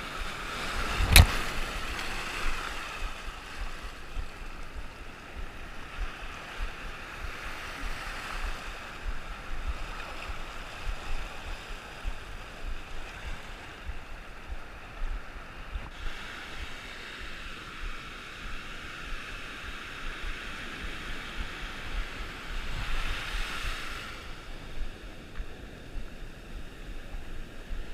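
Rough sea surf: waves breaking and washing in, swelling in surges every several seconds, with wind buffeting the microphone. A single sharp thump about a second in is the loudest sound.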